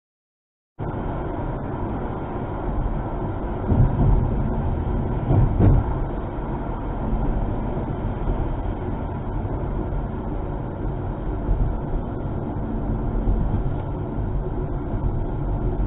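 Steady road and engine noise of a car cruising on a highway, heard from inside the cabin through a dashcam microphone, starting suddenly after a brief silence. Two louder low rumbles swell up around four and five and a half seconds in.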